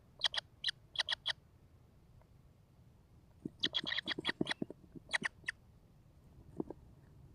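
Kingfisher giving short, sharp, harsh call notes: a few spaced notes at first, then a rapid run of them about three and a half seconds in, and a few more spaced notes toward the end.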